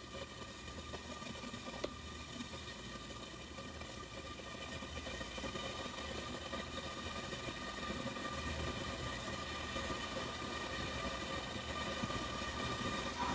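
Steady mechanical hum with a high whine, growing slowly louder, and a single faint click about two seconds in.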